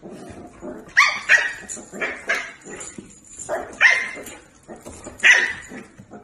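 A dog barking in a series of short, high barks, about seven of them, several in quick pairs.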